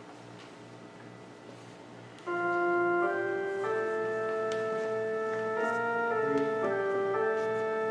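After about two seconds of quiet room tone, an organ starts playing: sustained chords that shift to new notes every second or so.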